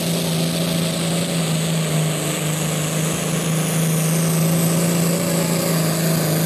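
John Deere farm tractor's diesel engine running flat out under heavy load, pulling a weight-transfer sled. It makes a loud, steady drone that holds one pitch throughout.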